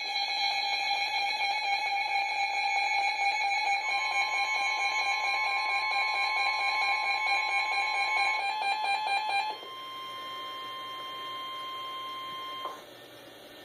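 Weather radio sounding a flash flood warning: a loud, steady, buzzy electronic alarm tone. About four seconds in, a steady higher warning alarm tone joins it. The buzzy tone stops after about nine and a half seconds, and the higher tone carries on alone, more quietly, until it cuts off near the end.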